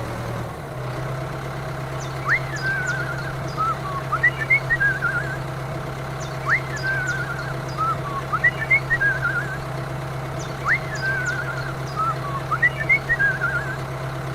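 A small motor hums steadily, settling into a new steady pitch about half a second in. Over it, the same short whistled, chirping phrase, a quick upward sweep followed by warbling notes, repeats three times about every four seconds.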